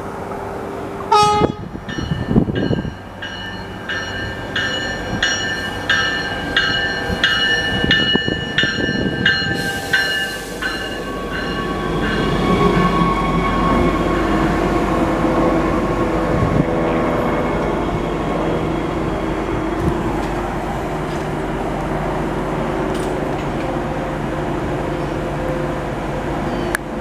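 Stadler diesel light rail train arriving: a horn note at the start, then its bell ringing about twice a second for several seconds. After the bell stops, the diesel engine and wheels rumble with a slowly falling whine as the railcar pulls in and stops, and the engine hums at idle.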